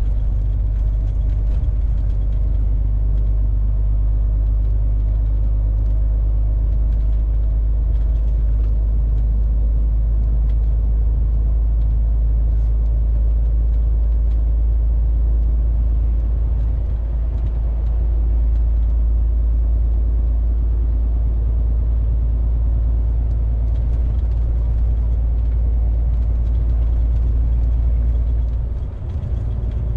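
MAN TGX 470 truck's straight-six diesel engine running at a steady cruise with tyre and road noise, heard from inside the cab as a steady low drone. The sound dips briefly near the end.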